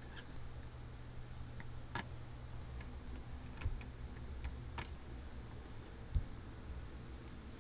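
A few light clicks and taps from small metal tonearm parts being handled at a workbench, with a soft thump about six seconds in, over a steady low hum.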